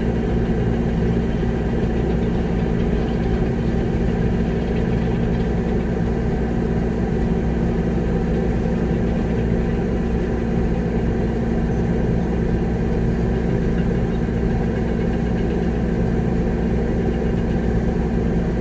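Concrete mixer truck's diesel engine running steadily at idle, a constant low drone that does not change.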